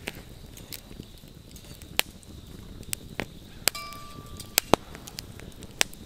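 Wood campfire burning and crackling, with irregular sharp pops scattered through, one of them followed by a brief ringing note.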